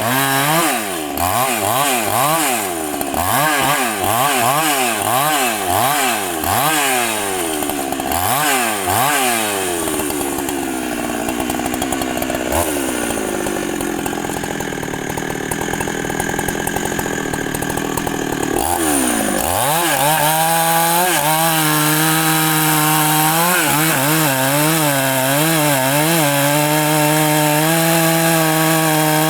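Large two-stroke Husqvarna chainsaw cutting into a big tree trunk. For about ten seconds the engine revs up and falls back about once a second; it then bogs down lower under load, and from about two-thirds of the way in it runs steadily at high revs.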